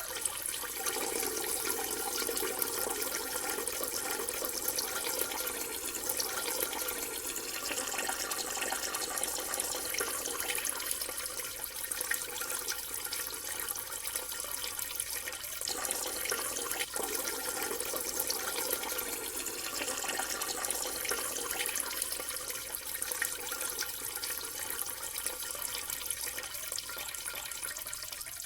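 A person urinating: a steady stream of liquid splashing, starting abruptly and running on evenly.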